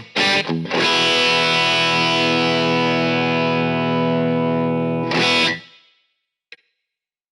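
Epiphone Flying V electric guitar through a Marshall SC20H amp on a crunch tone, with a light overdrive. It plays a couple of short chord stabs, then lets one chord ring for about four seconds. A last short stab follows, then the guitar is cut off to silence, with one small click near the end.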